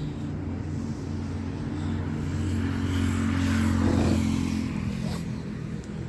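A motor vehicle's engine running nearby, its hum growing louder to a peak about four seconds in, then fading away like a vehicle passing by.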